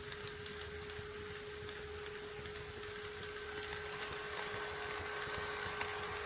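HO scale model train running on sectional track, its motor and wheel noise with faint clicking growing slowly louder over the second half, over a steady electrical hum with a constant high whine.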